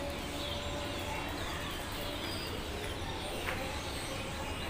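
A noisy chorus of many birds calling, with short, high, falling chirps repeating every half second or so over a steady low hum.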